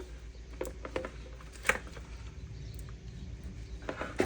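Scattered light clicks and taps of hands handling a raw fish while rubbing seasoning into it, with one sharper click near the middle and a few more near the end, over a low steady hum.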